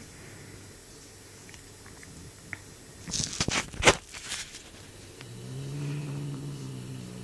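A burst of scuffling and rustling about three seconds in, then a Bengal kitten growling: a low, steady growl that starts about five seconds in and carries on to the end.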